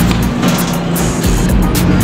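Background music with a steady beat, laid over the running of a twin-shaft metal shredder grinding scrap.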